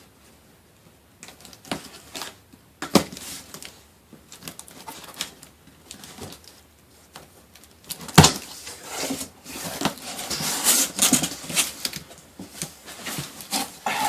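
Cardboard shipping box being opened by hand: scattered small clicks and scrapes, one sharp knock about eight seconds in, then crumpled newspaper packing rustling and crinkling.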